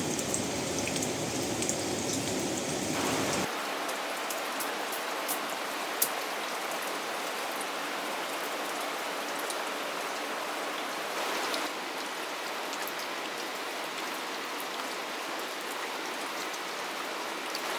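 Steady rain falling, with individual drops ticking on a hard surface and one sharper tap about six seconds in.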